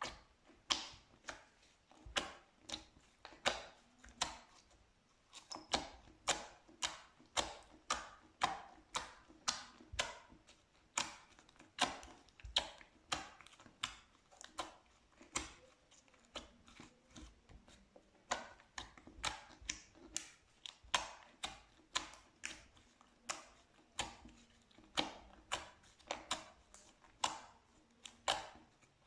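Slime being pressed and squeezed by hand, giving a steady series of sharp, wet clicks and pops, about two a second.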